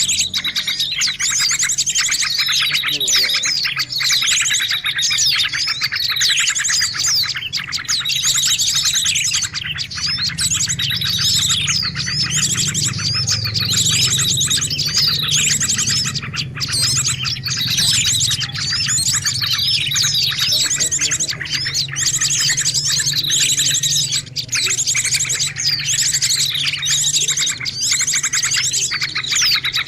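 Songbirds chirping and singing continuously, with repeated falling chirps and a fast buzzy trill. This is a birdsong track of the kind played to tutor caged songbirds in new song phrases (masteran).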